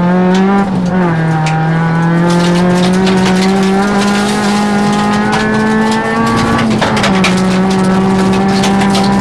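Rally car engine at high revs, heard from inside the cabin. The pitch drops about a second in and again near seven seconds, then climbs slowly each time, as the car changes gear under load. Gravel pelts the underbody and wheel arches in quick clicks.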